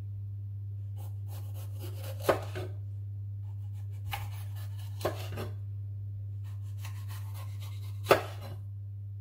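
Chef's knife slicing through a red bell pepper on a wooden chopping board: three crisp cuts, each ending in a sharp knock of the blade on the board, the last the loudest. A steady low hum runs underneath.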